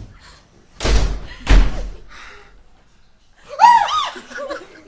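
Two heavy thumps about half a second apart, then a high-pitched shriek from a person that rises and falls in pitch several times.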